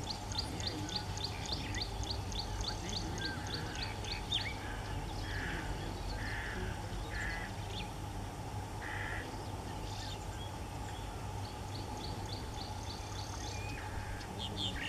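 Birds calling: a rapid series of short, high repeated notes, about four or five a second, for the first few seconds and again near the end, with a few other short calls between. Under them runs a steady low background rumble.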